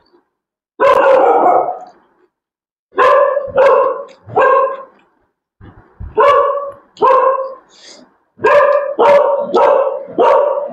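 A dog barking repeatedly and loudly, in runs of about three to five short barks with pauses between, the runs coming closer together near the end.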